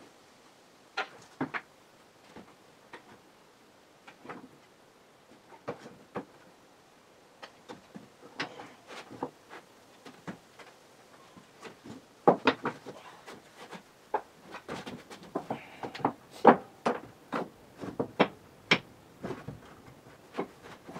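Irregular wooden knocks and clatter as old barn loft floorboards and debris are handled on the wooden floor. Sparse at first, then much busier in the second half.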